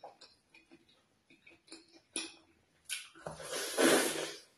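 Faint wet clicks of fingers working pounded yam in slimy ogbono soup. About three seconds in comes a loud, noisy slurp lasting about a second as a soup-laden handful goes into the mouth.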